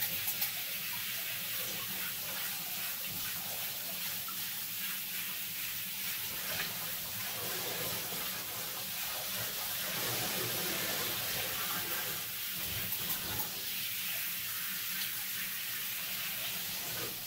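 Handheld shower head spraying a steady stream of water onto a dog standing in a bathtub, rinsing the shampoo lather out of her coat.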